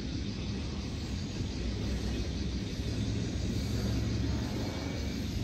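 N scale model piggyback flatcars rolling past on the track, a steady low rumble of wheels on rail.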